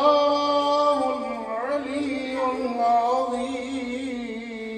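A man's voice reciting the Quran in melodic tilawat style: long held notes with a few ornamented turns in pitch, fading toward the end.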